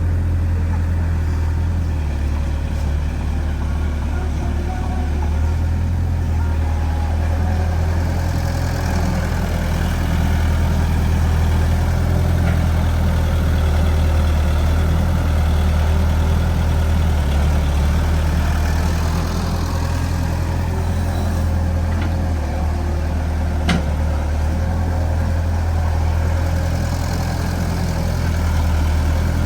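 Excavator's diesel engine running steadily while digging soil, its level rising somewhat for a stretch in the middle as it works under load. A single sharp metallic knock comes near the end.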